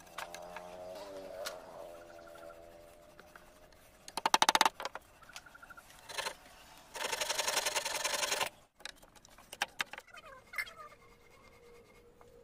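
Handsaw work on wood: a short, loud run of rapid rasping strokes about four seconds in and a longer run from about seven to eight and a half seconds, with scattered clicks. A wavering pitched call sounds in the first two seconds.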